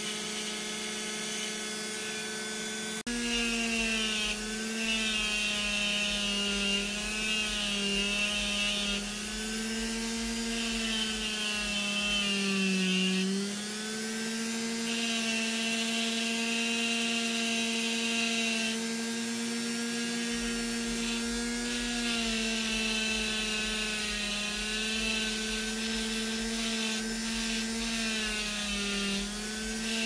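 Micro rotary tool grinding a stone: a steady motor whine that sags in pitch when the bit is pressed in, with a hissing grind that comes and goes as the bit touches the stone. It gets louder about three seconds in.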